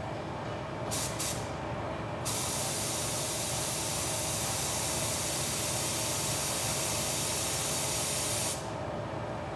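Aerosol spray can of clear coat spraying the restored headlight lens: two short puffs about a second in, then a steady hiss for about six seconds that cuts off near the end.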